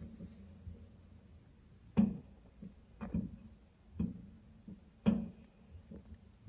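Fireworks exploding in a string of sharp bangs, roughly one a second, each with a short rumbling tail.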